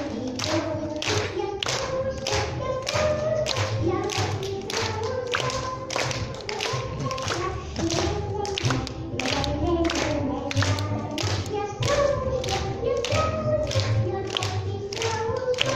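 A song with singing over a sharp, even beat of about two strikes a second.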